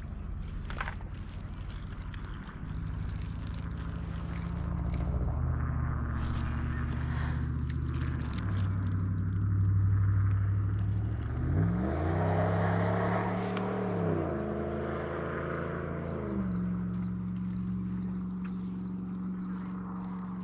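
An engine running with a steady drone, its pitch stepping and gliding up about halfway through, dropping back a couple of seconds later and rising again near the end. A few faint clicks and a brief rustle come through over it.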